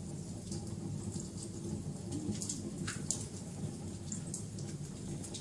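Wood fire crackling: scattered sharp pops and snaps, one louder about three seconds in, over a steady low rumble.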